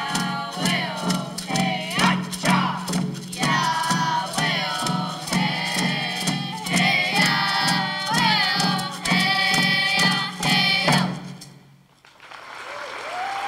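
Group of children and youths singing together, beating frame hand drums in a steady beat. The song stops abruptly near the end, and applause begins just after.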